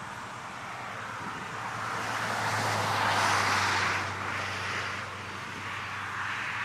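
A vehicle passing at a distance, its road noise swelling to a peak about three seconds in and then fading, over a steady outdoor hiss.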